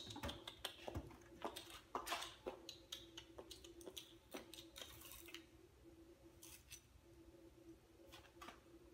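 Scattered small clicks and taps of hands working on an iMac G3's plastic case and screws, thickest in the first five seconds and then sparse, over a faint steady hum.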